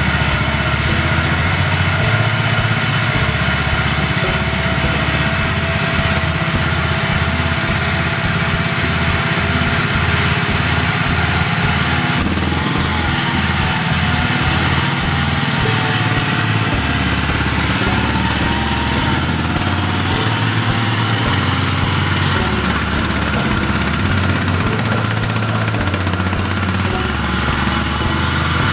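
Small engine of a ride-on mini loader running steadily as the machine is driven and manoeuvred.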